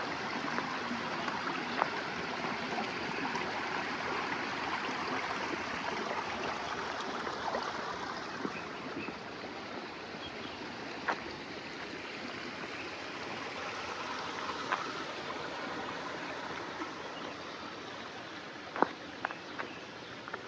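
Running water of a stream, a steady rushing that eases off slightly as it goes on, with a few sharp clicks, the loudest near the end.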